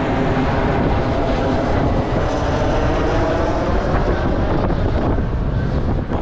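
Jet aircraft passing overhead, a steady rumble with a layered hum, over wind rushing on the microphone of a moving bicycle.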